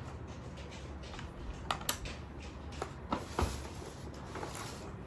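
A few light clicks and knocks of tableware being handled at a meal, scattered through the middle of the stretch over quiet room tone.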